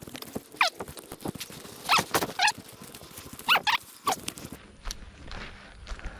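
Several short animal calls, each sliding down in pitch, come singly and in quick pairs over the first four seconds, with light rustling and clicks underneath.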